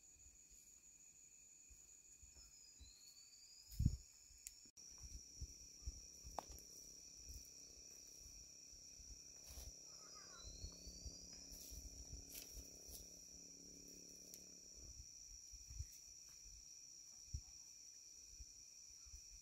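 Insects chirring steadily in a faint, continuous high-pitched drone, with a single low thump about four seconds in and a faint low hum through the middle.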